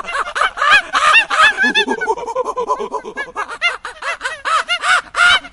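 Rhesus macaques calling: a rapid, continuous string of short squeaky notes, each rising and falling in pitch, several a second.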